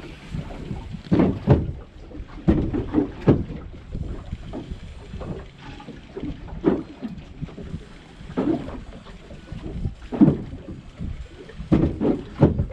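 Water lapping and slapping against the hull of a small boat, with irregular gusts of wind buffeting the microphone.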